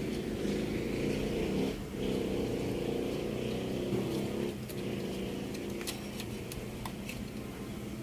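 An engine running steadily with a low, even hum, with a few faint clicks near the end.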